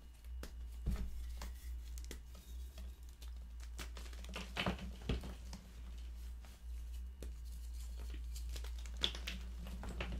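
Hands crushing and crumbling a slab of purple gym chalk into powder: soft crunching and crackling, with a few sharper snaps about halfway through and one near the end.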